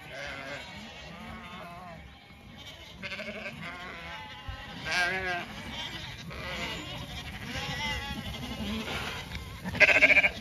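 A flock of Zwartbles lambs bleating as they run, many short calls overlapping one another, with a louder bleat about halfway through and the loudest just before the end.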